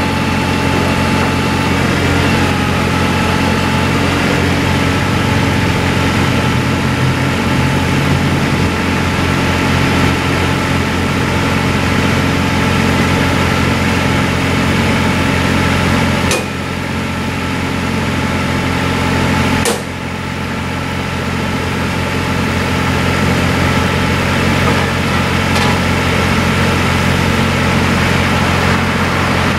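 Flatbed tow truck's engine idling steadily, a constant low hum with a few fixed higher tones. There are two abrupt breaks about 16 and 20 seconds in.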